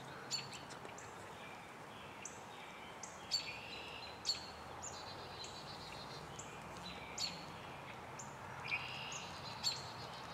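Birds chirping in woodland: short, high chirps repeated about once or twice a second over a steady faint hiss.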